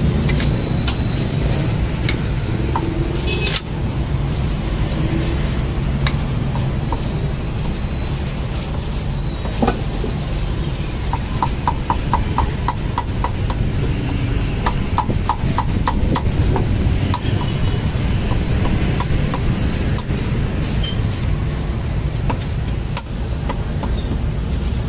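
Meat cleaver chopping roast meat on a thick wooden chopping block: single knocks throughout, with quick runs of rapid chops about halfway through. A steady rumble of passing street traffic lies underneath.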